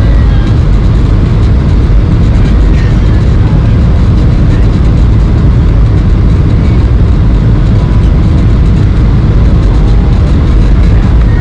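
Loud, steady rumble of engine and airflow noise inside a Boeing 737-800's cabin, heaviest in the low end.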